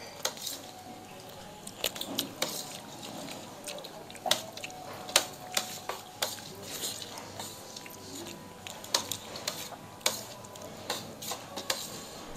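A spoon clinking and scraping against metal thali plates and small bowls during a meal, in irregular sharp clinks spread through the whole stretch.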